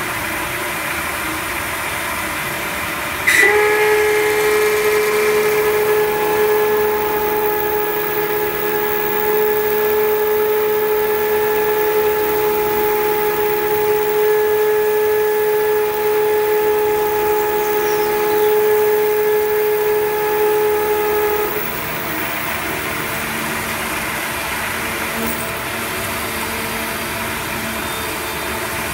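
CNC mill cutting aluminium with a 10 mm three-flute long-series carbide end mill at 5000 rpm under flood coolant: a steady hiss of spindle, cut and coolant spray. About three seconds in, a loud pitched squeal with several overtones starts suddenly; it stops abruptly about twenty-one seconds in.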